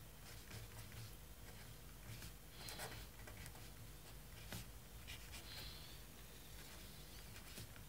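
Faint scratching of a pen writing on paper, in a few short separate strokes.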